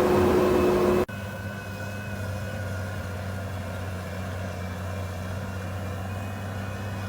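Farm machinery engine running steadily. About a second in, the sound cuts abruptly to a quieter, steady low engine hum.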